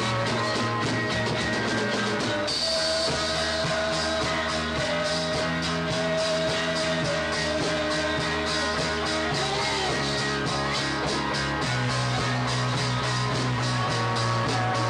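Live rock trio playing: electric guitar, bass guitar and drums with steady cymbal strokes. The bass moves to a new note a few times, and a long note is held through the middle.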